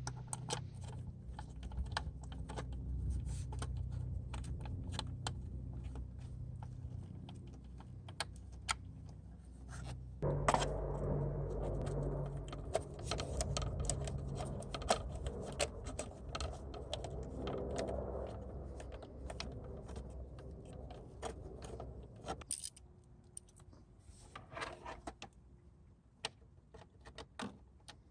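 Many light clicks and small metallic rattles from a hex-bit driver as screws are started and tightened in plastic tail fairing pieces, with a denser stretch of handling noise in the middle.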